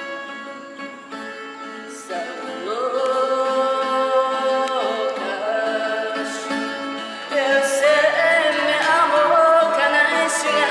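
Live fado: a woman's voice sings long held notes that slide up into pitch, over plucked Portuguese guitar and classical guitar. The guitars play alone at first, the voice comes in about two seconds in, and a louder phrase begins about seven seconds in.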